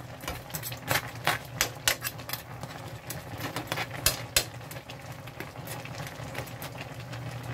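Metal spatula clicking and scraping against a frying pan while stirring crabs in a simmering coconut-milk sauce, in sharp irregular taps of a few per second, over a steady low hum.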